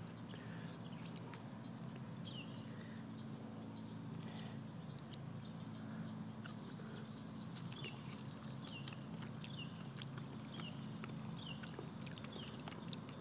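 Steady high-pitched chorus of insects such as crickets or katydids, with short falling chirps every second or two and a low steady hum beneath.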